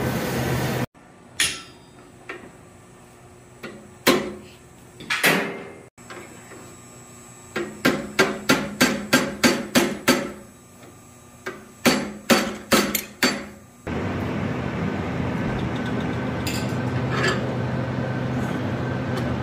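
Ball-peen hammer striking hot steel on an anvil: a few single blows, then two quick runs of ringing blows at about three to four a second, forging the small turtle's flippers. A steady rushing noise plays in the first second and again after the blows.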